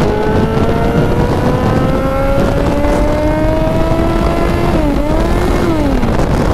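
Kawasaki Z1000's inline-four engine pulling under light throttle, its pitch climbing slowly for about four seconds, dipping and rising again briefly, then falling off near the end as the throttle closes. Wind rushes steadily over the microphone.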